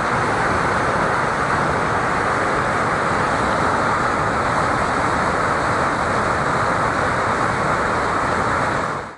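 Steady rush of water pouring over a pond spillway, an even roar without change, cut off abruptly at the end.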